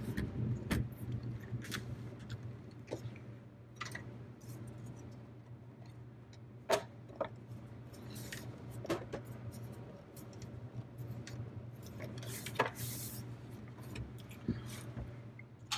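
Sheet-metal covers of a car radio being handled and fitted onto the chassis: scattered light metallic clicks and taps, two sharper ones about a third and four fifths of the way in, over a faint low hum.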